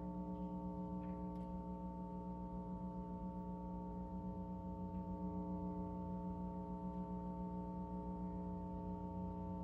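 A single chord held steady on a keyboard instrument such as an organ, with a slight fast wavering in level and no change of notes.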